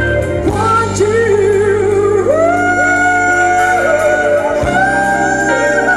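Live band music with guitar to the fore: a lead line that bends and slides in pitch over steady bass notes.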